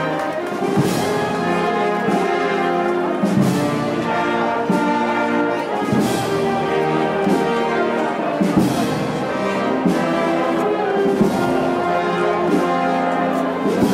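Music led by brass instruments, playing held notes and chords that change about every second.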